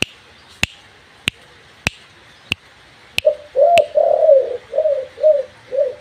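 Spotted dove cooing: a run of about six short, throaty coo notes in quick rhythm through the last three seconds. Before and under it come sharp, evenly spaced clicks, about every 0.6 s, seven in all.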